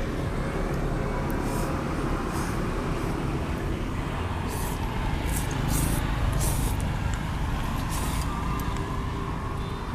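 Several short hissy slurps of rice noodles being sucked up from a bowl, over a steady low rumble of road traffic.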